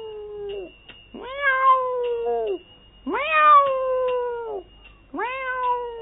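A cat meowing repeatedly: long drawn-out meows that rise and then fall in pitch, about one every two seconds.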